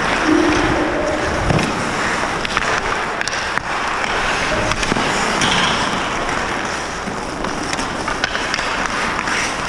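Ice-hockey skates carving and scraping across the ice, with scattered sharp clacks of sticks and puck.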